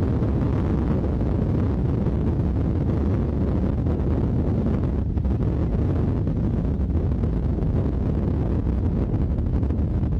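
Tornado-strength wind roaring around the chase vehicle and buffeting the microphone: a steady, loud, low rumble with no let-up.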